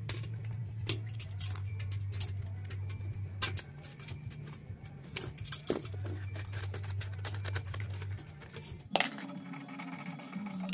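Scattered metallic clinks and clicks of a DYN motorcycle exhaust silencer and its mounting spring being handled with pliers, the sharpest clack about nine seconds in, over background music.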